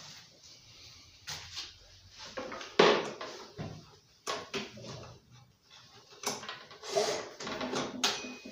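Irregular knocks and clatter of tools and parts being handled, the loudest about three seconds in.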